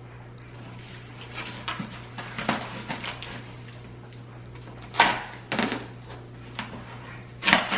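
A cardboard shipping box being opened and handled: scattered rustles and short knocks, with a sharper knock about five seconds in and a louder bout of handling near the end.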